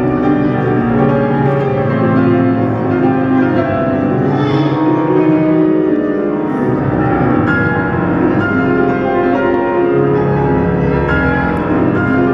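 Instrumental music with piano playing steadily.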